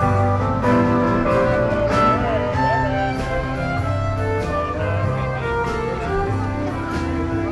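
Country band music, with fiddle and guitar over a steady beat.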